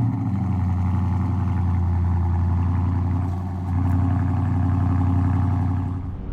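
Dodge Charger Scat Pack's 6.4-litre (392) HEMI V8 idling steadily just after start-up, with a deep, even hum and a brief small dip in level about three and a half seconds in.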